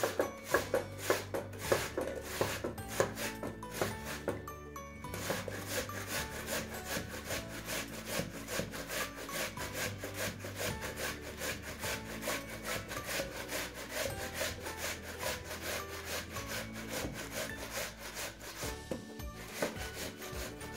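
Food being grated on a stainless steel box grater, pushed down the coarse holes in repeated scraping strokes, about two a second.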